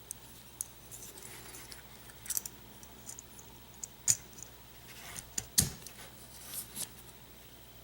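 A handful of small, sharp metallic clicks and taps, spread out with quiet between them, from a lock cylinder and a plug follower being handled while the lock is taken apart. The loudest click comes a little past halfway.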